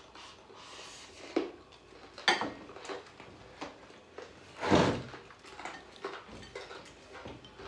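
Chopsticks clinking and scraping against stainless-steel bowls and a wok while food is picked up, a few separate clicks, with one louder knock a little under five seconds in.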